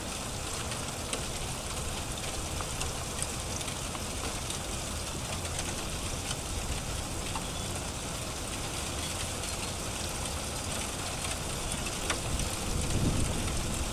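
Steady hiss of tiny hail falling, with a few faint scattered ticks of pellets striking. A low rumble rises near the end.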